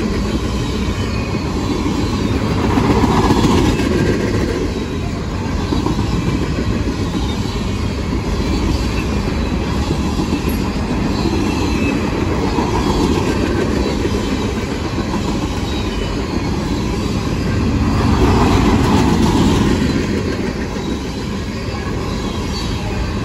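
Long freight train rolling past at track speed: a steady rumble and clatter of steel wheels on the rails as the cars go by, swelling louder twice.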